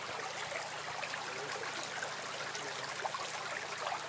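Shallow creek flowing over stones: a steady rush of running water with small trickles.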